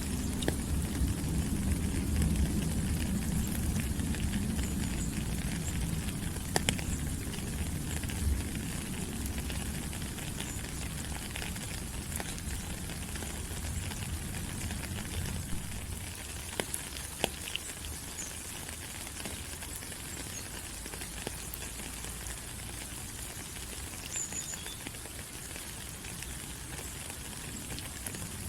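Steady rain falling on rainforest foliage: an even hiss of patter with scattered louder drips, and a low rumble through the first half that fades away.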